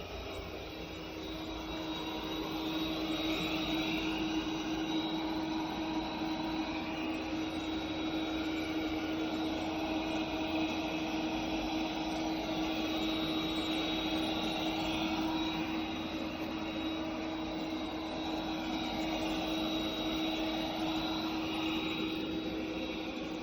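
Tapo RV30 Max robot vacuum running, a steady motor hum with a constant drone and a high whine over it.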